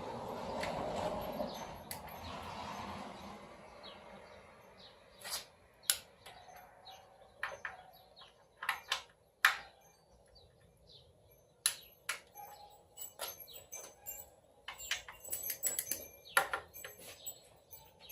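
Hand tools working bolts on the engine: irregular sharp metallic clicks and taps, with a quick run of ratchet-like clicks near the end, after a few seconds of rustling handling noise at the start.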